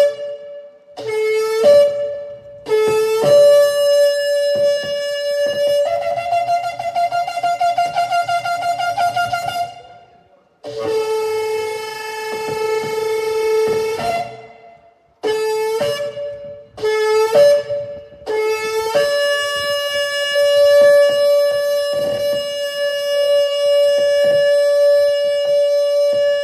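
Shofar blown in a series of blasts, each starting on a low note and jumping up to a higher one: a few short blasts, a wavering stretch in the middle, then one long, steady held blast of about seven seconds near the end.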